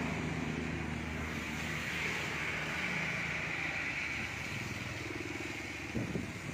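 Vehicle engine and road noise heard from inside the cabin as it drives across a bridge, with a steady hiss over it. The engine's low hum eases off about a second in, and a short low sound comes near the end.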